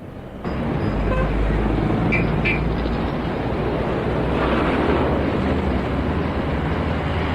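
Traffic jam ambience: vehicle engines running with a steady low rumble and a dense wash of road noise, getting louder about half a second in. Two short high-pitched beeps come a little after two seconds.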